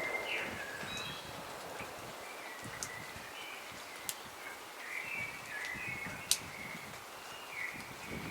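A songbird chirping in short, repeated notes, some falling in pitch, over a faint steady outdoor hiss, with a few sharp ticks, the loudest about six seconds in.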